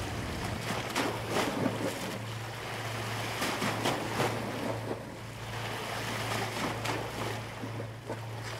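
Seawater lapping and splashing irregularly against a seaweed-covered stone edge, foaming over it, with a steady low hum underneath.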